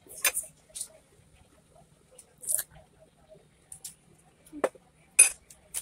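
Fork and knife scraping and clicking against a ceramic plate in scattered short, scratchy sounds while eating a salad.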